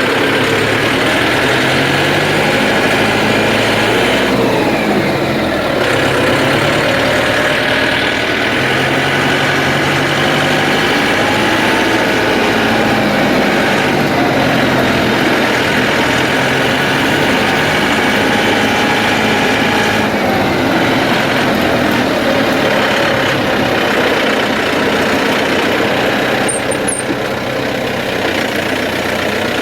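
Farm tractor engine running steadily close by, its pitch shifting slightly now and then.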